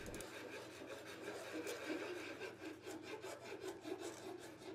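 Faint, quick, repeated strokes of a hand rasp filing the rough edge of a hole-saw cutout in plywood.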